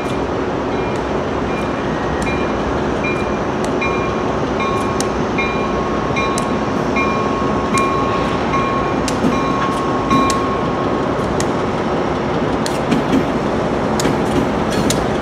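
Diesel locomotives leading a train toward the listener: a steady rumble that grows louder near the end, with sharp clicks from the wheels. A short high tone repeats about every three-quarters of a second through most of it, then stops.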